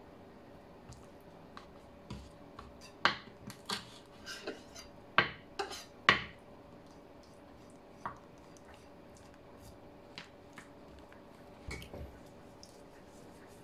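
Kitchen knife clicking and knocking on a wooden cutting board while making small cuts in raw shrimp. The sharp taps bunch together a few seconds in, then come singly.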